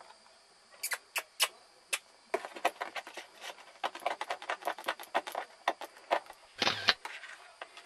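Kittens' claws scrabbling and scratching in a plastic laundry basket lined with a blanket: a quick, irregular run of sharp clicks and scratches. Near the end there is one louder rustling bump.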